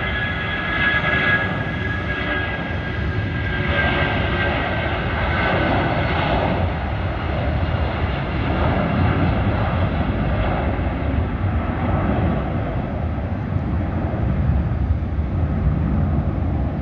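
Boeing 757-200 freighter's two turbofan engines at takeoff power. A few steady high whining tones sit over a deep, broad rumble at first and fade out after a few seconds, while the rumble carries on steadily through liftoff and the climb.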